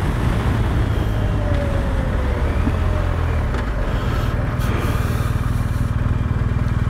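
Motorcycle engine running steadily at riding speed, a fast even pulsing under a constant rush of wind and tyre noise.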